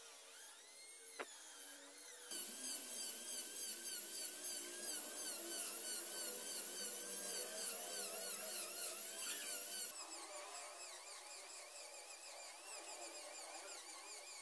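High-speed handheld rotary tool with a thin cut-off disc whining as it cuts grooves into a small piece of wood, its pitch wavering under the load. The whine gets louder about two seconds in and drops back about ten seconds in, with a short click about a second in.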